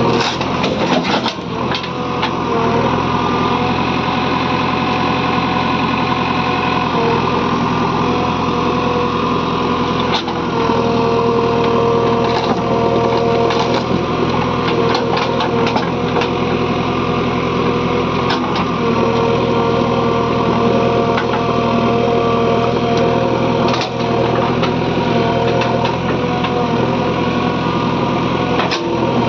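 Diesel engine of a JCB 3DX backhoe loader running steadily at working speed, with occasional short knocks and clicks.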